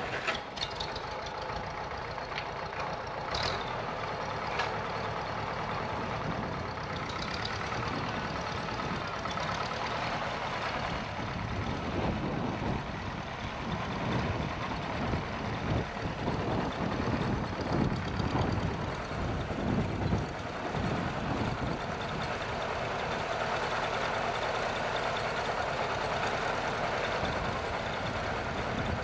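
Farmall Super C tractor's four-cylinder engine running steadily under load while it drags loose dirt.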